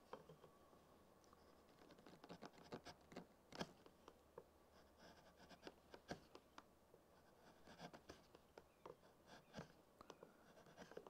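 Faint, irregular short scrapes and ticks of a crank-neck gouge paring green beech wood inside a hollowed shrink pot: light finishing cuts taking down a high spot.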